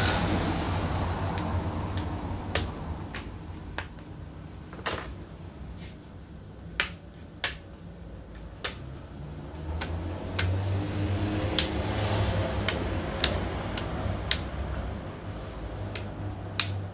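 Plastic screen bezel of an Asus X507U laptop being pressed onto the lid, its clips snapping into place in a string of sharp, irregular clicks over a steady low hum.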